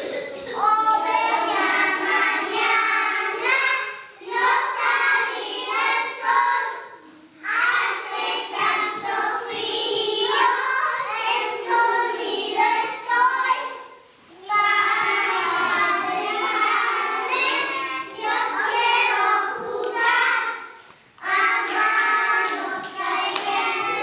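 Young children singing a song together without instruments, in phrases of a few seconds separated by short pauses.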